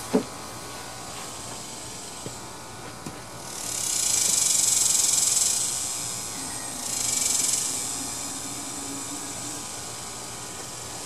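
Aerosol carb cleaner sprayed into the carburetor throat of a Tecumseh mower engine, priming it before cranking. There is one hissing spray of about two seconds, then a shorter one about a second later. A brief louder sound comes right at the start.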